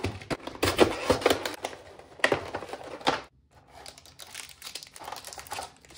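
Cardboard and plastic packaging of a Pokémon card collection box being opened and handled: crinkling and tearing with several sharp knocks, then, after a short pause about three seconds in, quieter rustling as booster packs are handled.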